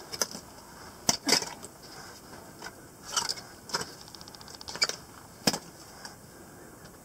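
Steel crampon points scraping and clicking against rock during a scramble, an irregular series of sharp scrapes and knocks. The loudest come a little over a second in and again near five and a half seconds.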